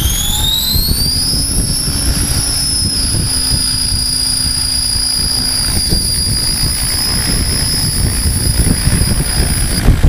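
HobbyKing HK-600 electric RC helicopter on a 6-cell battery spooling up: the high whine of its brushless motor and gears rises in pitch for about the first second, then holds steady as it lifts into a hover, shifting lower near the end. A low rumbling noise runs underneath.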